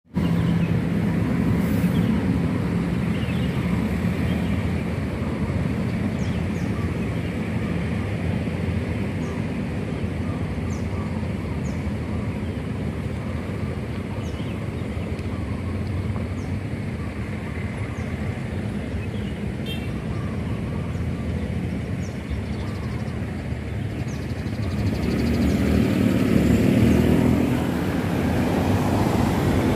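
Roadside traffic ambience: a steady motor-vehicle engine hum, swelling louder for a few seconds near the end.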